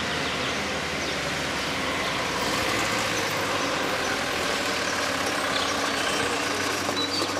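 A white Mercedes minibus driving past, its engine running steadily with tyre noise on the road.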